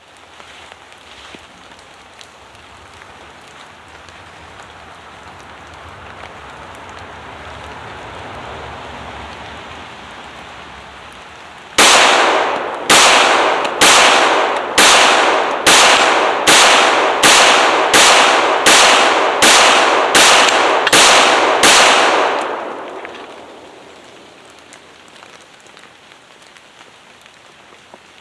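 A Glock 21 .45 ACP pistol firing about a dozen shots in steady succession, roughly one a second, starting about twelve seconds in, each shot with a short echoing tail; the rounds from a bag of mixed secondhand ammo are being test-fired. Before the shots there is only a steady rushing background noise.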